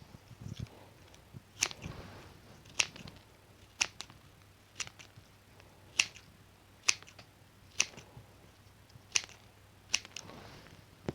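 Scissors snipping, about one sharp, crisp snip a second, ten in all, with a soft rustle of the material after a couple of cuts.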